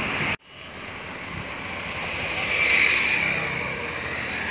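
Road traffic going by, a steady rush of vehicle noise that swells as a vehicle passes about halfway through. The sound cuts out briefly just under half a second in.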